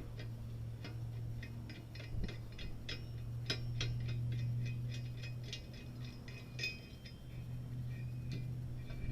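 Quick metallic clicks, several a second and uneven, from parts of a steel bicycle being worked loose during disassembly, over a steady low hum.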